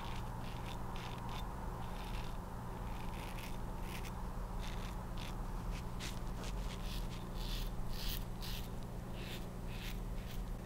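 Soluna open-comb safety razor scraping through lathered stubble on the neck: many short, quick strokes in an uneven series, over a low steady hum.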